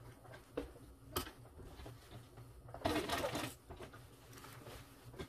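Sewing machine stitching through leatherette in one short run of under a second, about three seconds in, with a sharp click about a second in and a low steady hum underneath.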